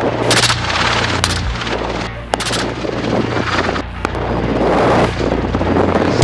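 Steady helicopter rotor and engine drone, broken by several gunshots fired in quick groups.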